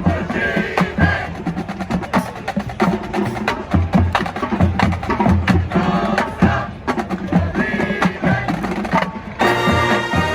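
Marching band playing: the drumline drives a busy run of sharp, rapid percussion hits, and the brass section comes in with loud held chords about nine and a half seconds in.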